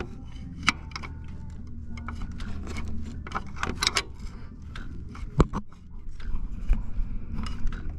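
Scattered metallic clicks and knocks of hand tools being handled on the engine, with two sharper knocks about a second in and past the middle, over a steady low hum.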